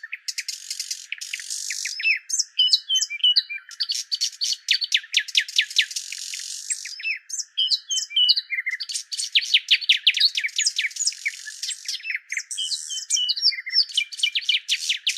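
A small bird chirping in fast runs of short, falling chirps, broken now and then by twittering phrases. The sound is thin, with nothing below the bird's own high range.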